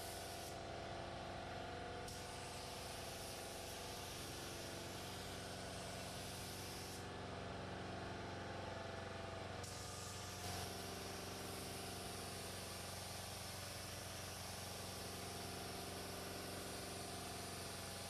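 Sagola 3300 GTO spray gun hissing as it lays on clear coat in passes, the hiss stopping briefly twice as the trigger is let off, over a steady low hum of a running motor.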